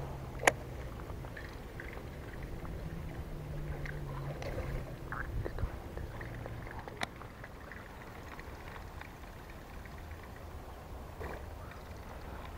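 Baitcasting reel and tackle being handled: one sharp click, then a few smaller clicks, over a low steady hum that drops off about seven seconds in.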